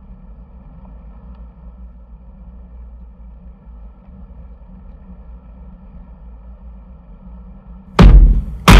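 Steady low rush of wind and road noise on a bike-mounted camera while freewheeling downhill on a road bike. Near the end, two loud heavy drum hits open a music track.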